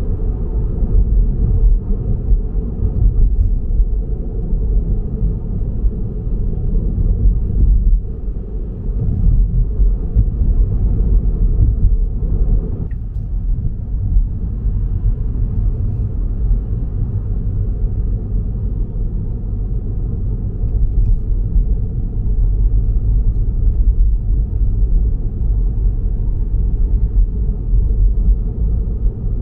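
A car driving, with steady, deep road and engine noise.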